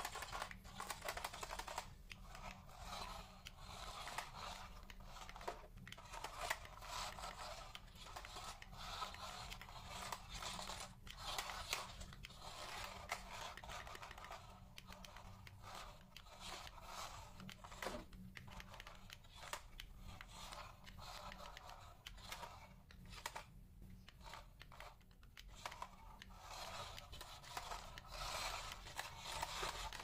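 Small toy remote-control stunt car with electric motors driving and tumbling on a tiled floor: its plastic wheels and body scrape, rattle and click irregularly as it spins and flips over.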